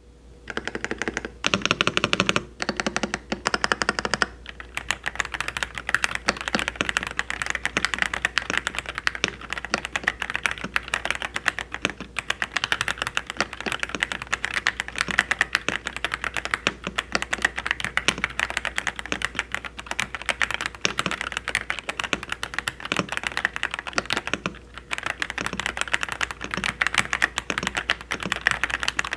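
Dareu A104 Pro full-size mechanical keyboard being typed on fast, a dense run of key clacks. A few slower, heavier strokes come in the first seconds, and the typing pauses briefly about four seconds in and again near twenty-five seconds.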